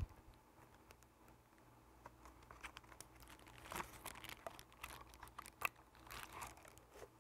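Faint crinkling and light clicks of a small clear plastic item being handled and turned over in the hands, with a few louder crackles about four and five and a half seconds in, over a low steady room hum.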